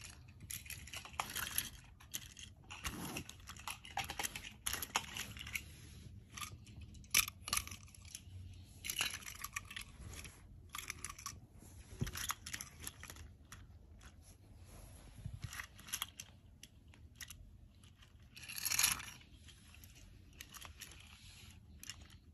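Small die-cast toy trains clicking and scraping as a toddler's hands push and couple them on a bedsheet, with scattered rustles; a longer rustle stands out toward the end.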